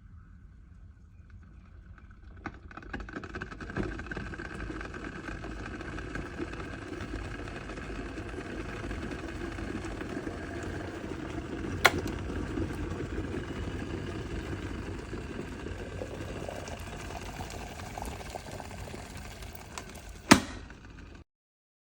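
Electric kettle heating water: a rumbling rush that builds over the first few seconds and then holds steady. A sharp click comes about halfway through and a louder one near the end, and the sound then stops abruptly.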